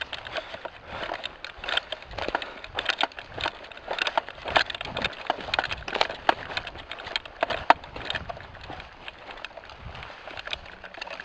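Footsteps crunching through dry brush and twigs, with irregular snaps and crackles several times a second.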